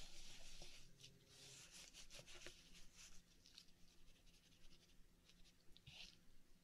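Near silence with faint small clicks and soft rubbing and scraping, typical of hands handling an opened oyster and its pearls. A slightly stronger short scrape comes about six seconds in.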